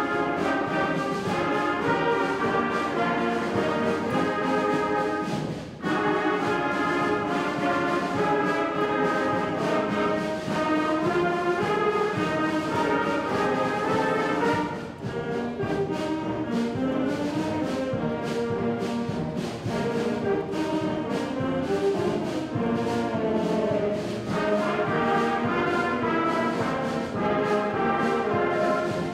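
Middle school concert band playing a march, brass leading with flutes and drums. The music breaks off for a moment twice, about six and fifteen seconds in.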